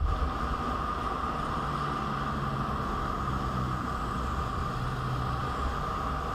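Steady running noise of a vehicle on the move: an even engine drone with road and wind noise.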